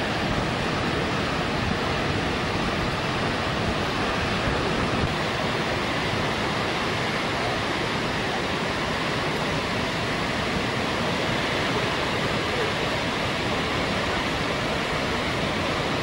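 Large waterfall pouring off a sea cliff into the sea, a steady unbroken rush of falling water and spray.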